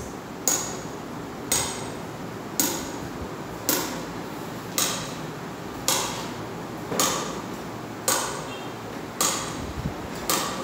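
A sharp knock repeating at an even pace, about one a second, ten times, each with a brief ringing tail.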